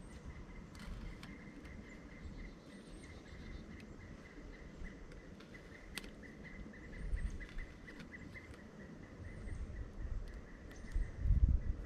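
Outdoor ambience of insects trilling steadily with the occasional small bird chirp and a few light clicks. A low rumble rises about seven seconds in and again, loudest, near the end.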